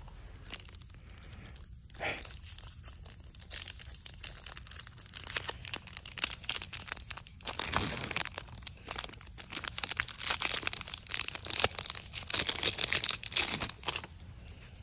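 Foil wrapper of a Topps baseball card pack being torn open and crinkled in the hands: a dense crackling rustle, louder and busier in the second half.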